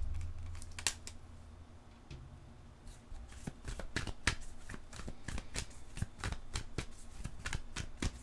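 Tarot cards being shuffled by hand. After a brief soft handling sound, a steady run of quick card clicks begins about three seconds in and continues to the end.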